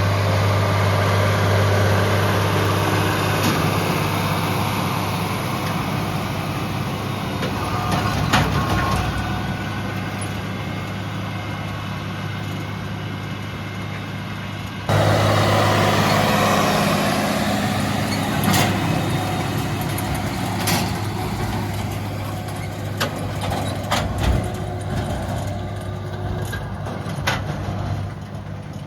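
Tractor engine running steadily as it pulls a Massey Ferguson large square baler through a field, with scattered sharp clicks and knocks from the machinery. The sound cuts abruptly about halfway through and carries on at a similar steady level.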